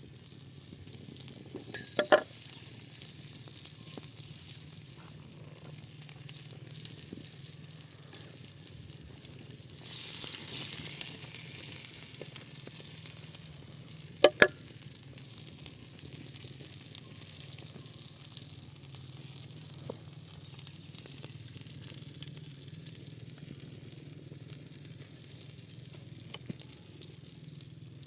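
Food frying in a pan over a campfire, a steady sizzle that swells louder for a couple of seconds about ten seconds in, then settles back. A few sharp clicks sound against it, two close together midway.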